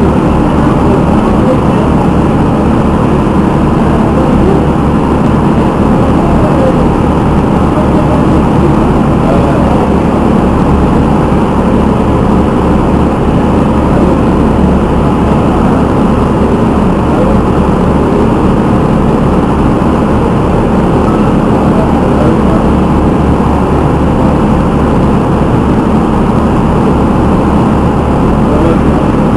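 Passenger shuttle boat's engine idling steadily at the quay, a loud, even low rumble.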